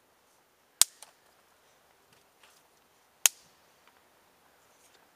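Dry dead sticks snapped by hand: two sharp cracks about two and a half seconds apart, the first followed quickly by a smaller crack.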